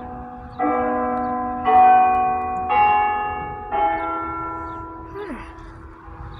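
Church bells chiming: four strokes on different bells about a second apart, each ringing on and fading, then the ringing dies away.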